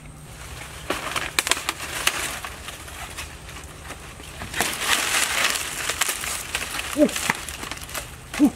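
Rustling and crackling of dry banana leaves, with scattered snaps and footsteps, loudest about halfway through. Two short pitched calls come near the end, about a second and a half apart.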